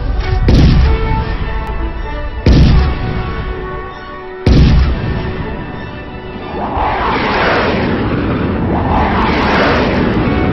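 Intro title music with heavy cinematic booms, three hits about two seconds apart, followed by two long swelling surges of rushing noise.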